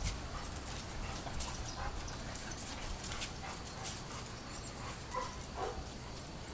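A dog whimpering and yipping in a few short, high calls spread across a few seconds, over a steady low rumble.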